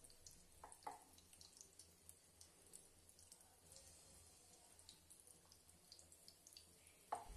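Faint sizzling of batter-coated potato vadas deep-frying in hot oil in a kadhai, with many small scattered crackles and pops.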